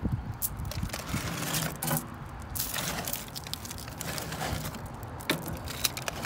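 Aluminium foil crinkling and rustling as it is handled, with irregular small clicks and scrapes.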